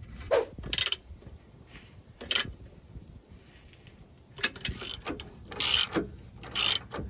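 Ratchet head of a torque wrench clicking in several short bursts as the rear shock absorber mounting bolts are tightened, the strokes bunching together toward the end.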